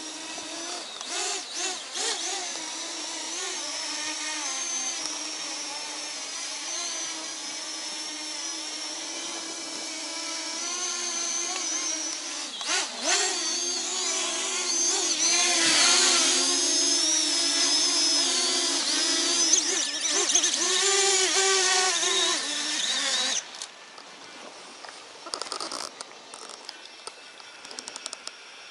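Parrot ANAFI quadcopter drone's propellers buzzing with a wavering whine, growing louder midway, then cutting off suddenly near the end; a few faint clicks follow.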